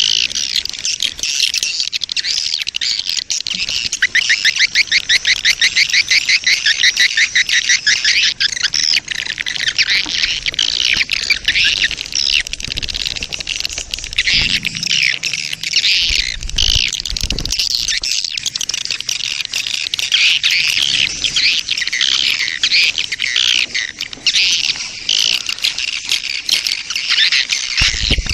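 Edible-nest swiftlet colony and mating calls: a dense, continuous mix of high twittering chirps, with a rapid run of evenly spaced chirps about four to eight seconds in. It is a lure call used to draw swiftlets into a nesting house.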